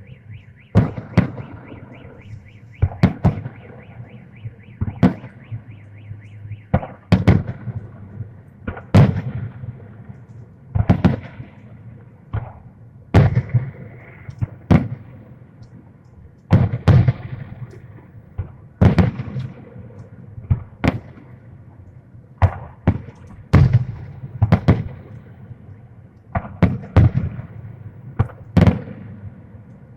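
Fireworks salute: aerial shells bursting with loud bangs about every two seconds, sometimes two close together, each trailing off in an echoing rumble.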